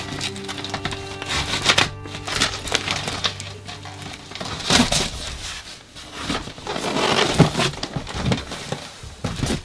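Plastic packing tape being ripped off a cardboard box, with the cardboard flaps scraping and rustling as the box is opened: a run of short tearing and crackling noises. Background music is heard in the first few seconds.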